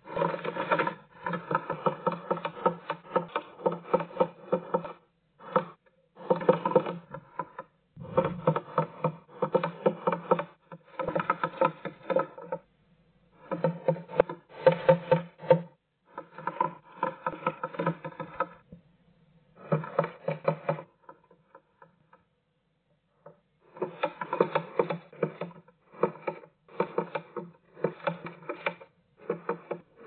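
Great tit tapping its bill hard and fast against the wooden wall inside a nest box, in bursts of rapid pecks a second to a few seconds long with short pauses between, like a woodpecker. The taps ring in the small box.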